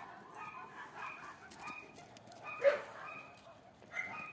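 A dog barking, with one louder bark about two and a half seconds in and fainter short calls around it.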